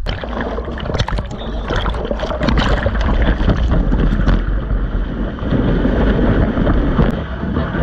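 Breaking whitewater rushing and splashing around a surfboard as the surfer paddles in and rides the wave, heard from a camera at the water's surface. Many quick splashes come in the first few seconds, then a steady, louder rush of foam, with a low rumble of water and wind on the microphone.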